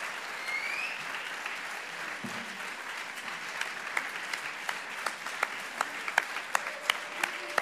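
A large audience applauding. About three and a half seconds in, the clapping falls into unison, a steady beat of roughly three claps a second.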